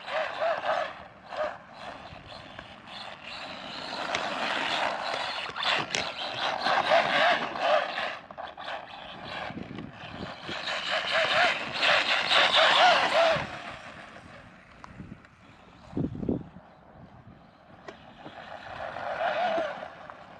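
Arrma Mojave Grom BLX mini RC truck's brushless motor whining up and down in several bursts of throttle, with quieter gaps between. Under it is the rough noise of its tyres running over dirt and grass.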